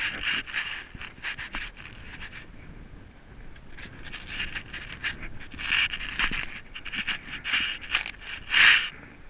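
Boots scuffing and scraping on bare granite in irregular steps down a steep rock slope, with a rope rubbing through a gloved hand. The loudest scrape comes near the end.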